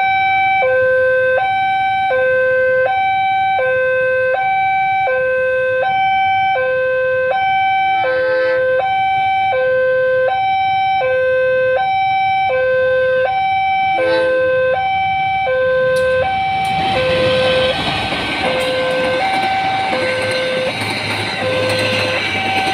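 Railway level-crossing alarm sounding a steady two-tone hi-lo electronic warning, switching between its two notes about every 0.7 seconds. From about 17 seconds in, a passenger train passes the crossing and its wheel and rail noise rises over the alarm.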